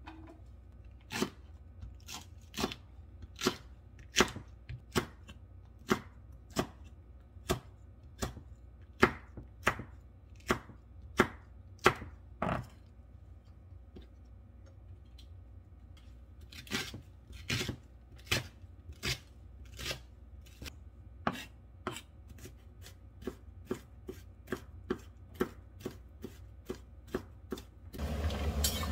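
Kitchen knife chopping chili peppers on a wooden cutting board: a series of sharp knocks, about one or two a second, with a pause of a few seconds midway and quickening near the end. In the last second it gives way to the steady sound of water boiling hard in a steel pan with kelp in it.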